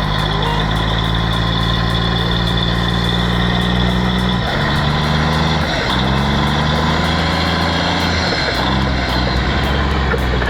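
Heavy machine's diesel engine running loud and steady, its pitch dropping and rising several times in the middle of the stretch as the revs change under load.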